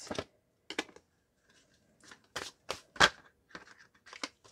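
Tarot cards being handled: shuffled and laid down one by one on a table, giving several short, sharp card snaps and taps, the loudest about three seconds in.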